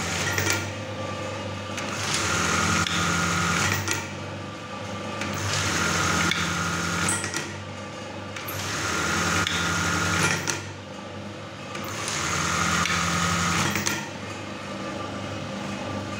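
A Brother 814 buttonhole sewing machine running under its motor on a test run. Its sound swells and eases about every three and a half seconds, five times, and settles quieter near the end. The test follows cleaning and oiling of its cams, and the machine is only partly repaired.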